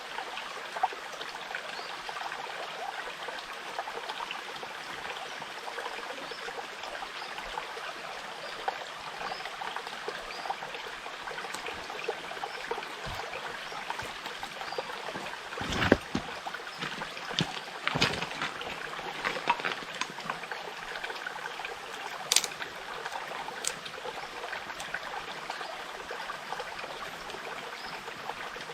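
Small forest stream babbling steadily, with a few sharp knocks and clicks in the middle.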